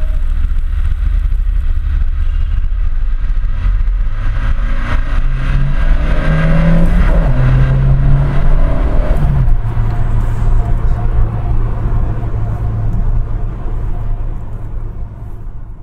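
Renault Megane Coupe driving on the road, engine and road noise loud. About halfway through, the engine note steps down in pitch twice as it shifts up, then runs steady and fades out near the end.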